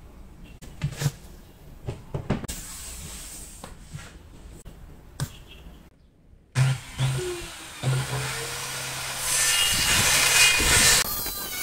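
A few knocks as a wood board is handled, then a handheld electric circular saw starts with a couple of short blips and runs. Its motor hum turns into loud cutting noise about three seconds later as the blade goes through the board.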